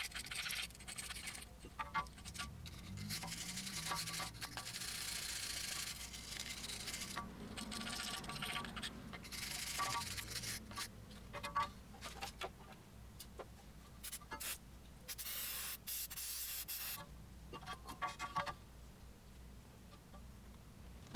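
Wire brush scrubbing rust and brake dust off a car's brake caliper in bursts of scraping strokes, with short pauses between them; the scrubbing stops a few seconds before the end.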